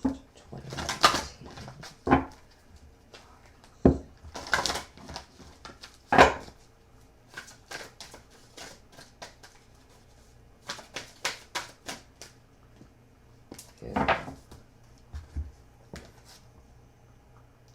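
Oversized oracle cards being shuffled and handled: intermittent papery swishes and snaps of cards sliding against each other, with a quick run of small clicks about two-thirds of the way through.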